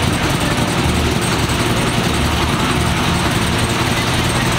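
Engine idling steadily with a low rumble.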